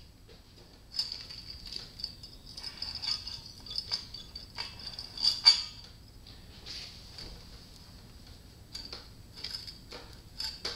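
Irregular light metallic clinks and rattles from a Suzuki GS550 engine's cylinder head and loose engine parts being handled as the head is worked free, with the sharpest clink about five and a half seconds in.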